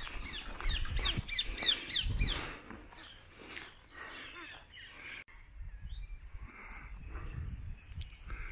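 Birds calling: a quick run of short, falling chirps, about five a second, for the first two seconds or so, then fainter scattered calls over a low rumble.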